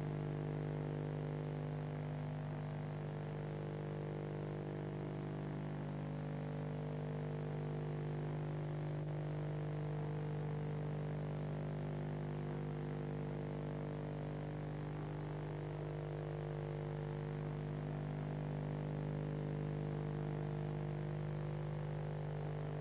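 Steady electrical hum: a low buzzing drone with a stack of overtones that holds one pitch and one level without change.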